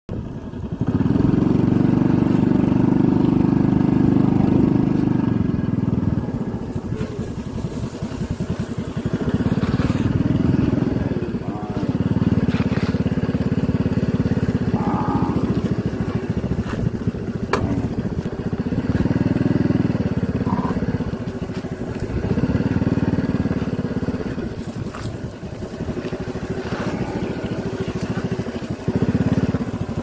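Motorcycle engine running at low speed, the throttle opened for a few seconds and then eased off again, over and over, as it creeps along.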